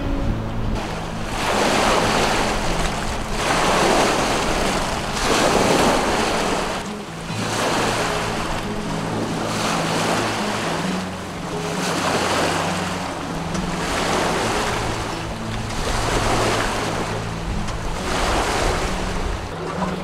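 Wind-driven lake waves washing and splashing against a rocky shore, surging about every two seconds, with gusting wind. Soft background music with sustained low notes runs underneath.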